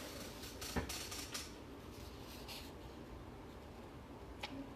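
Light rustling and a few soft clicks of something being handled on a table, spread through an otherwise quiet stretch.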